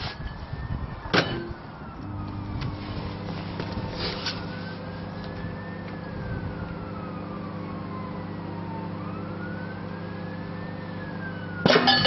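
A click, then a microwave oven running with a steady low electrical hum while a 25-watt golf ball incandescent light bulb glows inside it; near the end a loud burst of sharp crackling pops as the bulb breaks. A faint wail rising and falling every few seconds runs in the background.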